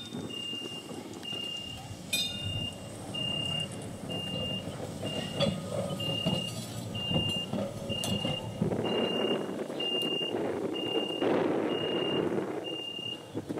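Electronic level-crossing warning signal beeping about once a second as a tram approaches the crossing. Under it, the electric tram's wheels and motors rumble on the track, growing louder in the last third.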